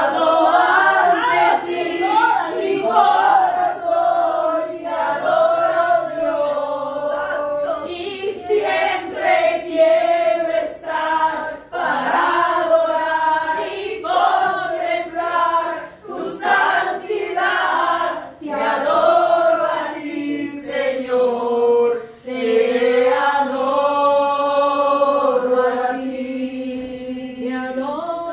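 A small group of women's voices singing a worship song together, with long held notes.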